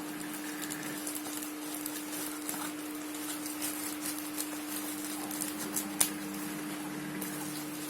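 A package being handled and opened: irregular crinkling, rustling and small clicks, with one sharper click about six seconds in, over a steady low hum.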